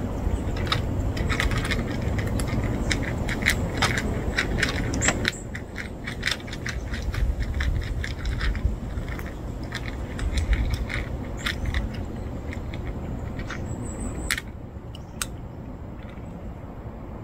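Two cats crunching dry kibble, with rapid crackling clicks of pellets being chewed and rattling against a plastic tray. The crunching is densest for the first five seconds and thinner after. A steady low rumble runs underneath.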